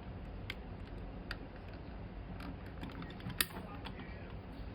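Plastic toy construction vehicles clicking and knocking as they are worked: a few separate sharp clicks, the loudest about three and a half seconds in, over a steady low hum.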